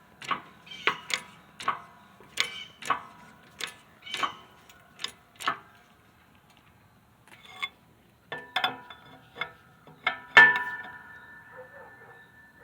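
Metal clicks and clinks from steel parts being worked on a hydraulic shop press, coming about two a second for several seconds. After a short pause come more clinks, then a loud metal clank about ten seconds in that leaves a ringing tone.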